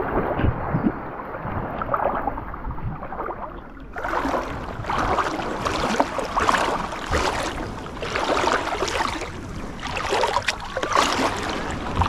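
Sea water sloshing and splashing close to the microphone, in repeated surges about once a second. Muffled for the first four seconds, then brighter and clearer.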